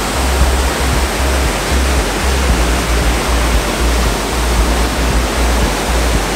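Loud, steady rush of the Canyon Sainte-Anne waterfall in heavy flow, with an irregular low rumble pulsing underneath.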